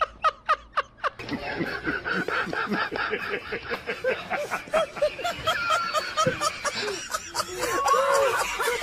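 A man laughing in short, evenly spaced bursts, then from about a second in a crowd of many people laughing together.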